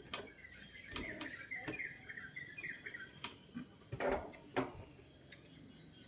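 Small birds chirping in a quick run of short calls, with scattered sharp clicks and two louder knocks a little after the middle.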